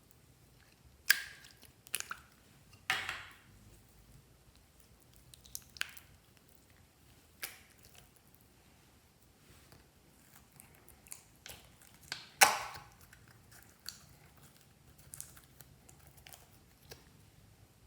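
Slime being kneaded and stretched by hand, making wet squelches and pops at irregular intervals; the loudest pops come about a second in, about three seconds in, and near the end.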